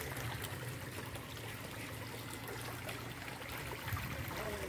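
Shallow spring-fed irrigation channel running fast over stones, a steady trickling and rushing of water.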